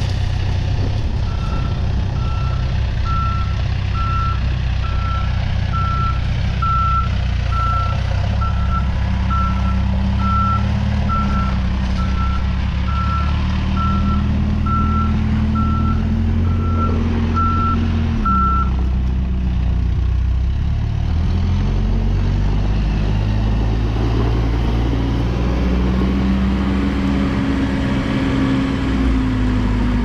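2010 Case 580 Super M backhoe loader's diesel engine running under work, its revs rising and falling several times as the machine maneuvers. Its reversing alarm beeps about twice a second while it backs up, stopping about two-thirds of the way through.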